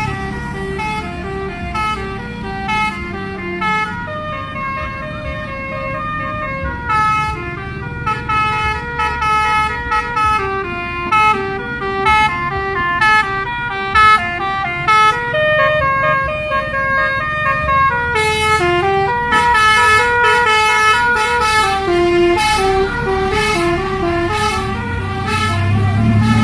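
Bus telolet basuri musical horn playing a fast tune, its notes stepping up and down several times a second, growing louder in the second half.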